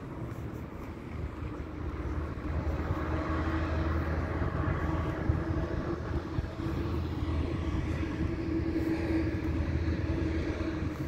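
Steady low engine drone of a motor vehicle that is not in view. It grows louder over the first few seconds and then holds.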